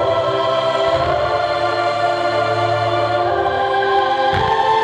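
Choral music with sustained held voices, the show soundtrack of a pyromusical. A low thump sounds about four seconds in.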